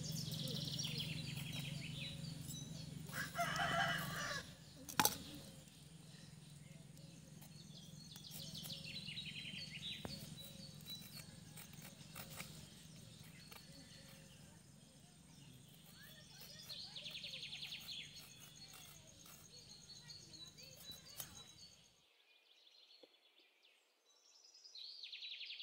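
Rural yard ambience: a rooster crows once about three seconds in, over a low steady hum, with scattered small bird calls and one sharp click about five seconds in.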